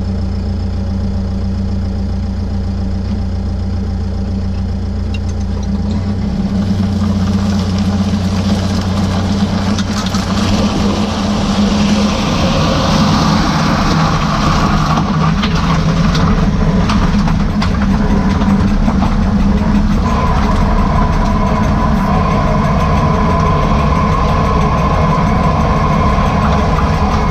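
Mercedes-Benz Sprinter van running, with a steady whine coming in partway through and holding on. The owner calls it a bad noise from the rear differential.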